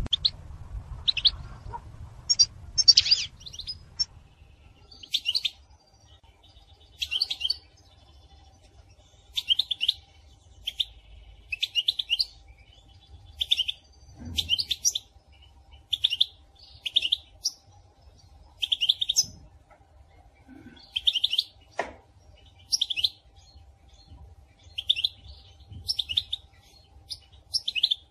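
A female European goldfinch's chattering calls, short high twittering phrases repeated about once a second. These are the calls bird keepers play to prompt male goldfinches to sing.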